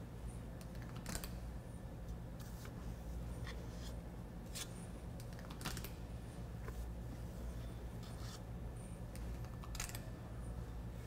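Metal cookie scoop scraping dough out of a stainless steel mixing bowl, with scattered sharp clicks as the scoop's release lever snaps and dough is dropped onto a sheet pan, over a steady low hum.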